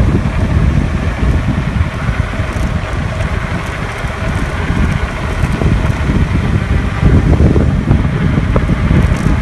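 Wind buffeting the microphone of a camera carried on a moving bike, a loud, gusty low rumble.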